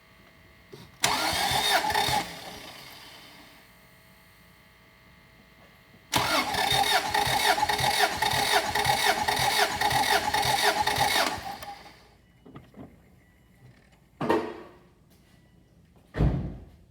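Car engine cranked on its starter motor with the spark plugs out for a compression test: a brief crank of about a second, then a steady rhythmic crank of about five seconds as the gauge builds to its total reading. Near the end come two short thumps.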